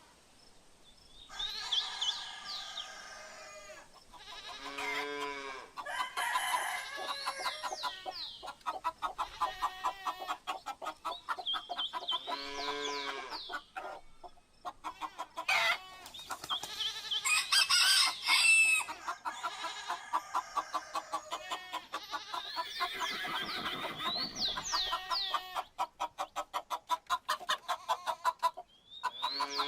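Farmyard ambience: chickens clucking in runs of quick, rapid calls and a rooster crowing, with small birds chirping in short, repeated falling phrases.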